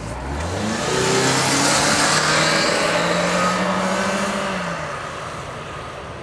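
A vehicle passing close by. It swells to a peak about two seconds in and fades away by about five seconds, with a tone that climbs as it comes and drops as it goes.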